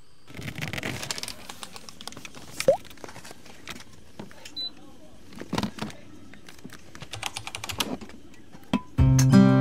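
Irregular clicking and rattling of small hard objects being handled, with a short squeak about a third of the way in. Acoustic guitar music comes in near the end.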